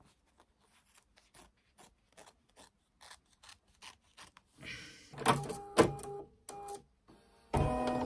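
Small scissors snipping applique fabric in faint, evenly spaced clicks, two or three a second. From about five seconds in, louder clunks and motor whirring come from a Bernina 790 embroidery machine as the hoop is fitted and the embroidery arm moves, and the machine runs loudest near the end.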